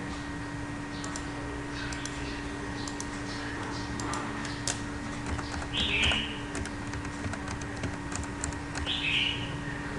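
Typing on a computer keyboard: irregular key clicks as a password is entered. Two short high chirps, about six and nine seconds in, are louder than the keys, and a faint steady hum runs underneath.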